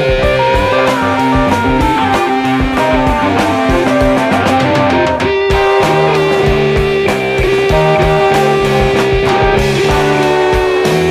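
Progressive rock recording from 1972: electric guitar lines over a steady beat.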